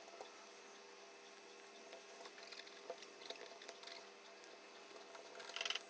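Faint scratching and small ticks of an alcohol-soaked cotton swab scrubbing an L298N circuit board and its solder joints, with a short, louder scratchy burst near the end.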